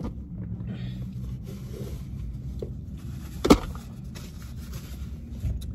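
Paper napkin rustling and small handling noises over a steady low hum, with one sharp click about three and a half seconds in.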